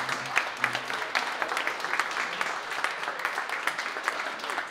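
A small audience applauding, many hands clapping unevenly, with music playing underneath.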